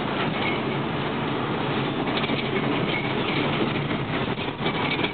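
Car engine and tyre noise heard from inside the cabin while driving slowly, a steady low hum with a few light clicks or rattles about two seconds in and again near the end.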